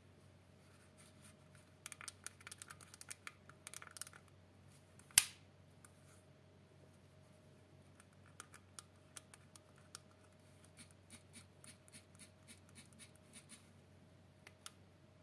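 Light plastic clicking and tapping from mobile phones being handled, in a quick cluster and then as spaced single clicks, with one sharper, much louder click about five seconds in.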